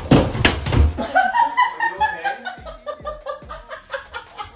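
Heavy thuds against a bathroom door in the first second, then a woman laughing hard in rapid bursts that fall in pitch.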